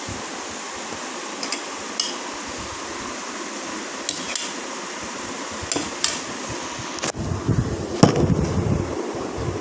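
A steel spoon knocking and clinking against a plastic bowl, several sharp separate taps. Near the end come louder bumps and rumbling from handling, with the loudest knock among them.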